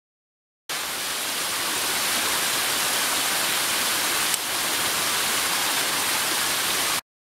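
Rushing water of a rocky mountain stream and small waterfall, a steady hiss that cuts in and out abruptly, with one brief tick about four seconds in.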